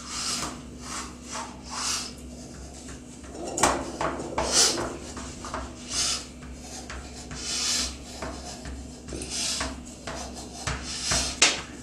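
Disposable-gloved hands pressing and rubbing buttered shredded kadayıf pastry into a metal tray: repeated soft rasping swishes at uneven intervals. A couple of sharper knocks come about four seconds in and near the end.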